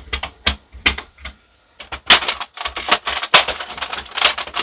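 Sharp clicks and clatter of metal computer-case parts and tools being handled while a PC is taken apart by hand. A few separate knocks come first, then a dense run of rapid clicks through the second half.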